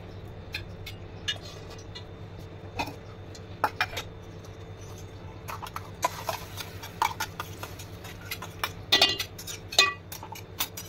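Steel spoon scraping and tapping inside a steel mixer-grinder jar to knock a ground paste out into an aluminium pot: scattered sharp metallic clinks, coming thick and ringing near the end. A steady low hum runs underneath.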